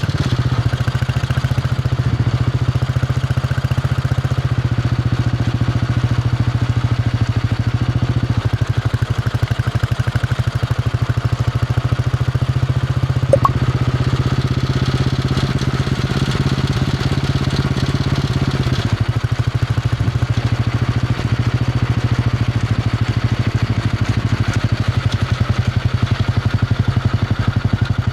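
Royal Enfield Bullet 500's single-cylinder four-stroke engine thumping steadily under way on the road, its note shifting in steps a few times as the revs change. A single short sharp tick sounds about halfway through.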